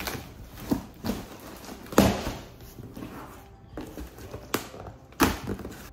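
Scissors cutting open a cardboard box, slicing the packing tape while the cardboard flaps scrape and rustle in a run of sharp bursts, the loudest about two seconds in and another near the end.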